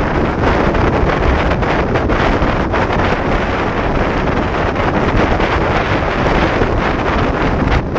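Wind buffeting the microphone of a GoPro Hero4 Session camera on a motorcycle riding at about 65 km/h: a loud, steady rushing noise that dips briefly near the end.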